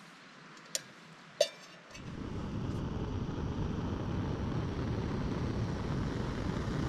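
Two light metallic clinks, then a screw-top canister backpacking stove burning steadily under a pot, its flame making a steady rushing hiss that starts about two seconds in.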